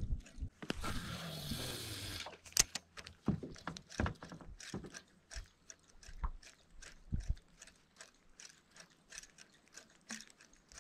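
Spinning reel being cranked as a topwater spook lure is worked back, giving many short, irregular mechanical clicks. A hissing rush lasts about a second and a half near the start.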